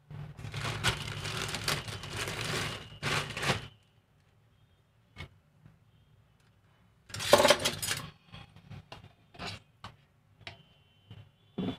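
Plastic bread bag rustling and crinkling for a few seconds as bread slices are pulled out of it. After a pause, a short loud burst of scraping about seven seconds in and a few light clicks and taps as the jam jar's lid is twisted off and set down.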